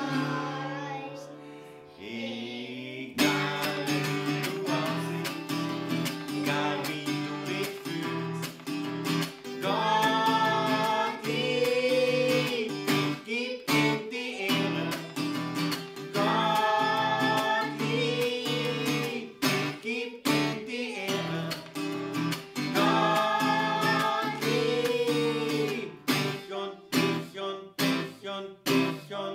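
Acoustic guitar strummed steadily while children sing a German children's hymn, their phrases coming in three stretches; near the end the strumming breaks into a few separate chords.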